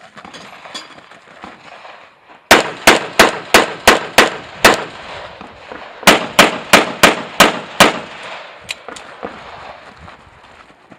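Pistol fired in rapid strings on a practical shooting stage: about seven shots roughly a third of a second apart start a couple of seconds in, then after a short pause about six more, followed by two fainter ticks.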